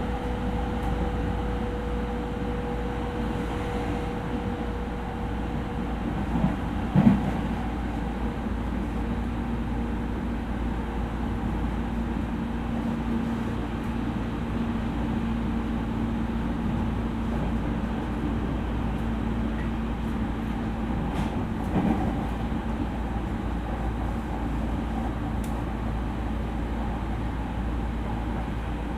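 E231 series electric train running, heard from inside the passenger car: a steady rumble of wheels on rail with a motor hum. A couple of sharp knocks come about 7 and 22 seconds in.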